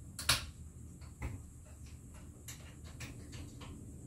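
Small clicks and knocks from a long-shafted lawn trimmer and its fittings being handled and adjusted by hand: a sharp click just after the start, a duller knock about a second in, then a run of lighter, irregular ticks.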